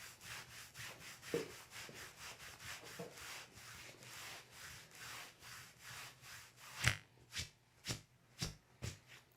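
Hands rubbing and stroking over a patient's back in soft-tissue massage, in an even rhythm of about three strokes a second. Near the end come about five sharper, louder strokes roughly half a second apart.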